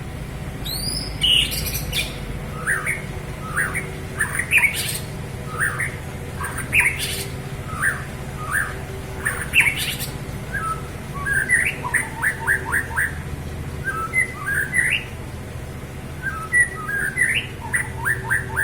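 White-rumped shama (murai batu) calling: short, sharp notes with pauses between them, and quick rattling runs of notes about 12 and 17 seconds in, over a steady low hum.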